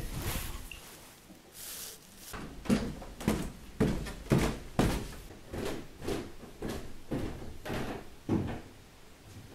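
A series of about a dozen knocks and thuds, roughly two a second, starting a couple of seconds in and stopping near the end.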